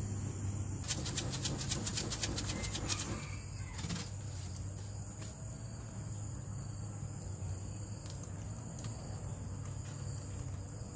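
Wood fire burning under a bamboo cooking tube, with a steady low rumble and scattered pops and crackles. About a second in, a rapid flutter of clicks lasts roughly two seconds.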